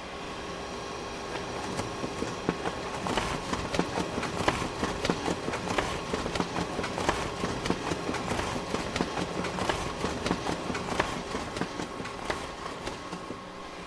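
Photocopier running: a steady machine hum with a few held whining tones. About three seconds in, a fast, irregular clatter of mechanical clicks starts; it goes on for roughly ten seconds and dies back to the hum near the end.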